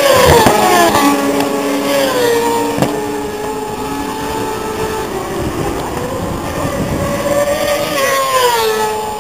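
Racing superbikes passing on the circuit, their engine notes loud and high, with the pitch falling sharply three times: near the start, about two seconds in, and near the end.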